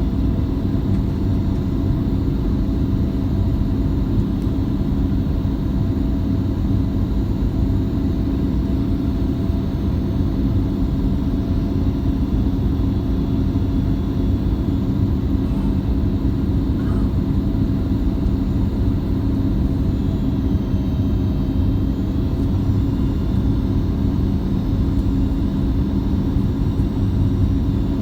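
Cabin noise inside a Boeing 737 MAX in flight on its descent to land: a steady rumble of engine and airflow with a low, even hum that holds the same pitch throughout.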